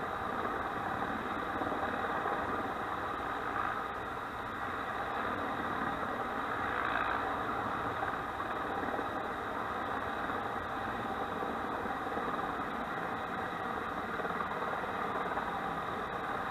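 Firefighting helicopter hovering low, its rotor and engine running with a steady, unbroken noise.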